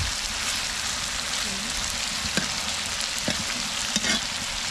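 Chicken and potato curry sizzling steadily in an iron kadai as it is stirred with a flat spatula, with a few light knocks in the second half.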